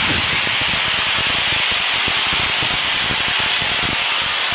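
Pressure washer jet blasting a concrete wall: a steady, loud hiss of high-pressure water spray.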